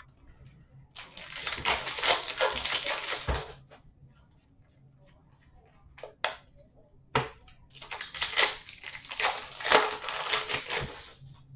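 Hockey card pack wrappers being torn open and crinkled by hand, in two spells of crinkling about a second in and again from about two-thirds in, with a few sharp clicks between.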